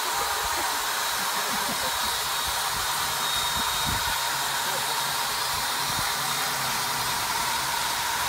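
Steady whirring of the electric motor driving a large spin-art turntable, with a faint steady high whine over the rushing noise.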